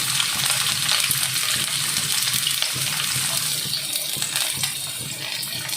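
Chopped onions sizzling in hot oil in a frying pan, a steady hiss full of fine crackles.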